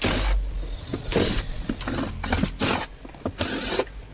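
A string of short, irregular rubbing and scraping noises, about six in four seconds: hands handling and working on a pressure washer's housing as it is taken apart.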